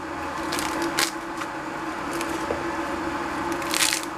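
Crisp radicchio and endive leaves torn apart by hand: a handful of short crackly snaps and tears, the longest near the end, over a steady low hum.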